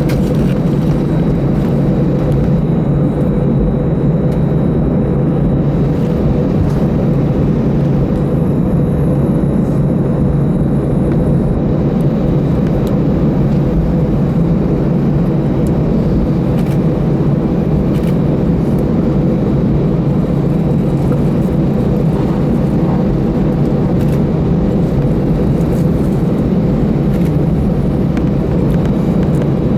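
Steady cabin rumble inside an Airbus A319-112 taxiing after landing: its CFM56 engines at low taxi power together with the air conditioning, carrying a few low steady tones. A faint high whine comes in about eight seconds in and fades a few seconds later.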